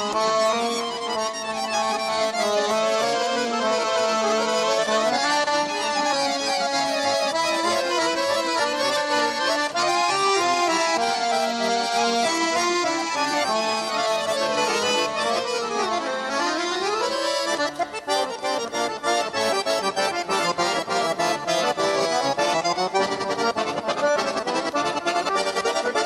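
Bayan and accordion duet playing a lively folk-style tune: quick runs sweep up and down over held chords, turning to short, rhythmic chords about two-thirds of the way through.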